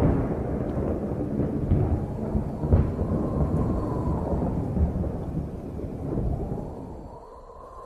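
Thunderstorm sound effect: thunder rumbling continuously with a sharp crack about three seconds in, dying down near the end.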